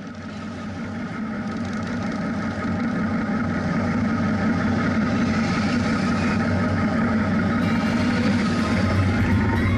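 Motorcycle engine running steadily with road and wind noise, recorded on board. It fades in over the first few seconds, and music seems to come in near the end.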